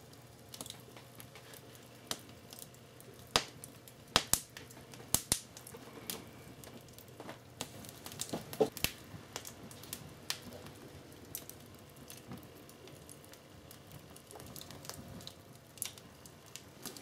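Scattered sharp clicks and knocks, as of small hard objects being handled, over a faint steady hum; the loudest cluster falls in the first half.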